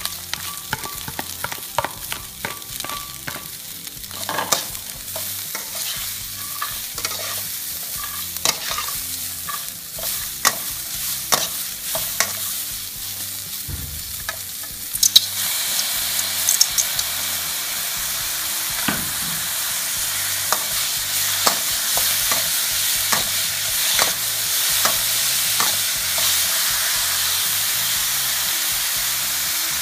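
Metal spatula scraping and clacking against a stainless steel wok while stir-frying sliced sausage with diced vegetables, over sizzling oil. About halfway through the sizzle becomes louder and steadier.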